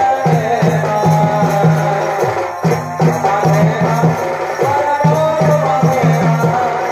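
Loud folk music: a wavering melody line over a repeating drum pattern, with jingling percussion.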